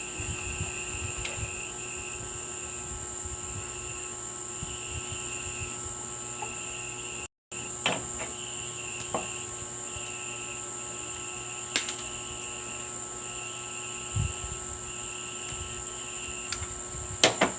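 Rhythmic insect chirping in short repeated bursts over a steady high whine and a low hum, with a few sharp clicks and knocks.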